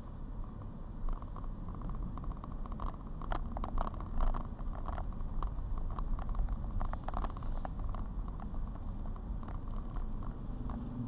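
Car driving: a steady low rumble of road and engine noise, with scattered light ticks and taps through it.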